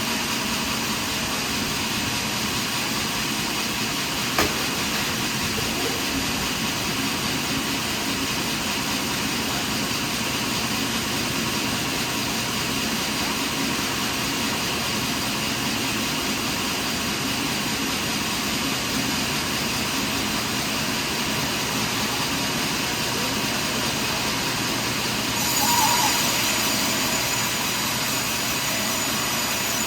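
Sawmill machinery running steadily, with a single sharp knock about four seconds in and a brief louder surge with added high hiss near the end.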